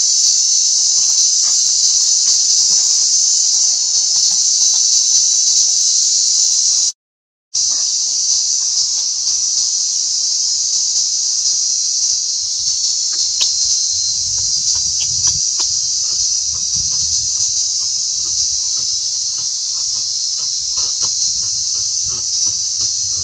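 Insects droning in a steady, loud, high-pitched chorus, with faint scattered ticks underneath. The sound cuts out completely for about half a second around seven seconds in.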